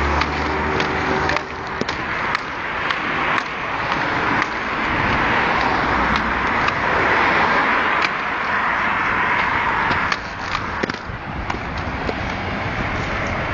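Inline skate wheels rolling fast over rough pavement: a steady rushing hiss with clicks at the paving joints. The rolling stops about ten seconds in, leaving scattered scuffs and clicks.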